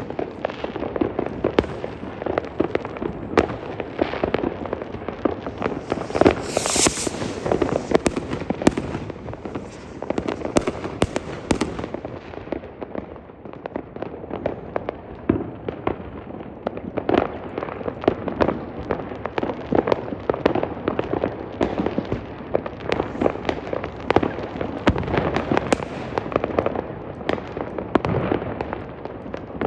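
New Year's fireworks and firecrackers going off in a dense, continuous barrage of cracks and bangs. A brief high hiss comes about seven seconds in.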